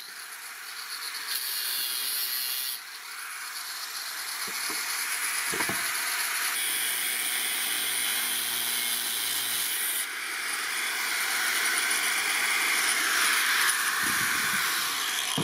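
Angle grinder with a thin cut-off disc cutting into a steel sword blank: a steady, loud hiss and whine of abrasive on steel, its load changing a few times as the disc bites and eases.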